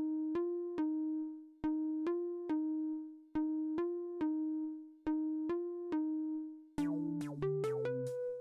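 Electronic music: a short three-note pitched figure repeats at a steady pace, each group fading before the next. About seven seconds in, a low bass part and a quicker run of higher notes join and the texture thickens.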